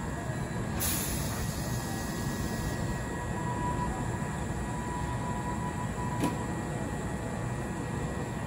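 Electric train running on the rails, a steady rumble of wheels and running gear, with a burst of hiss about a second in that lasts about two seconds.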